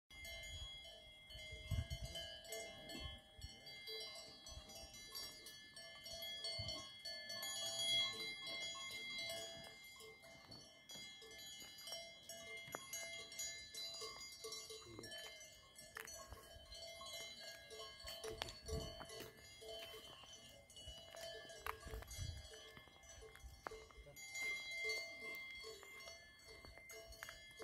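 Cowbells on grazing cattle ringing irregularly throughout, several bells at different pitches overlapping, with a few low rumbles now and then.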